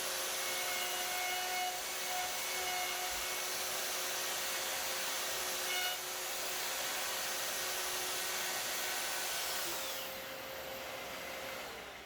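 Festool router cutting a hinge mortise in a door edge, running steadily with a dust extractor drawing through the jig. It gets quieter about two seconds before the end, and just before the end the motor is switched off and winds down in a falling whine.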